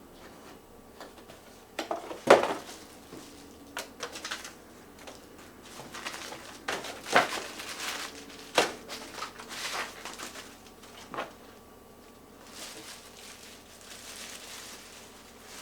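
Hands handling camera gear and packaging: irregular small clicks and knocks, the sharpest about two seconds in, with a softer rustle near the end.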